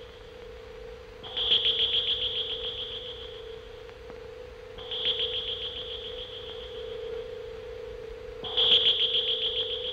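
Electronic sound effect of the Martian probe rising from its glowing pit. A steady low hum runs under three high, rapidly pulsing tones, a few seconds apart, each starting sharply and fading away over about two seconds.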